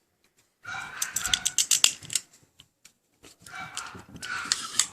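Metal clicks and scraping from a Springfield XDM 9mm pistol's slide and parts being handled and fitted back together, in two bursts with a short pause between.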